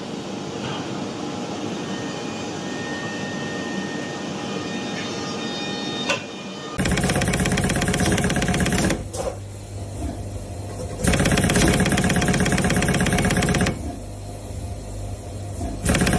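Machinery: a steady hum with a hiss over it, then a sudden change about seven seconds in to a louder, fast, even mechanical pulsing that runs in three bursts with quieter gaps between them.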